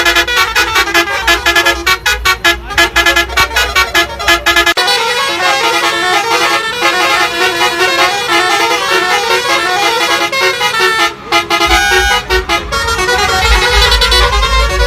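Tourist bus's musical air horns blasting a rapid melody of short pitched notes, over loud music with a deep bass beat that drops out about five seconds in and comes back near the end.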